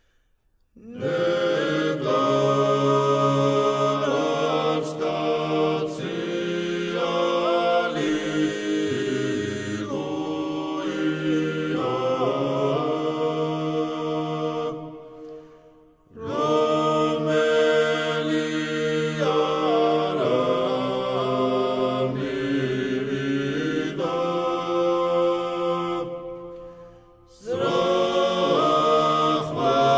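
Georgian church chant sung a cappella by a choir in three-part harmony, with voices holding steady chords together. The singing starts about a second in, fades to a pause around the middle, resumes, and breaks off briefly again near the end.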